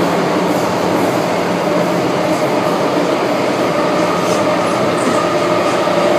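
Metro Cammell M-Train subway carriage running through the tunnel, heard from inside: a loud, steady rumble of wheels and running gear with a steady whine over it, and a lower tone joining about five seconds in.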